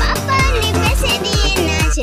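Upbeat children's nursery-rhyme music with a steady drum beat of about two beats a second under a wavering synth melody.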